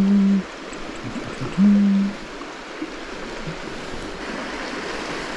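Creek water rushing steadily over the stream bed, with a man humming two short, flat notes in the first two seconds.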